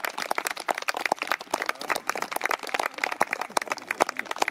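A group of people applauding: dense, irregular clapping.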